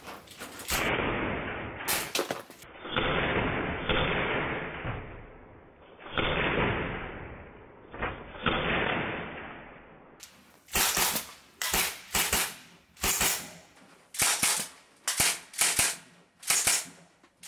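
CO2-powered Sig Sauer MPX .177 pellet rifle fired in rapid semi-automatic succession, a sharp crack about twice a second, some thirteen shots in the second half. Before them come slow, muffled swells of noise.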